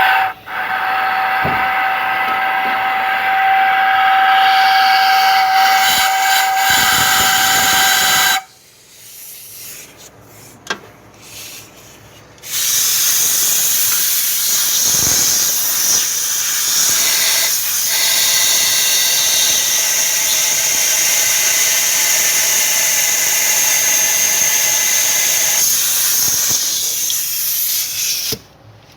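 Compressed air from a shop compressor blasting into an engine's oil passages, blown through to check whether the channel is clear or blocked. Two long blasts of loud hissing air: the first, with a steady whistle, stops about eight seconds in, and the second starts about four seconds later and runs on much longer.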